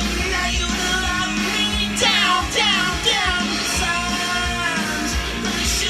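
Music playing from a vinyl record, with a singing voice.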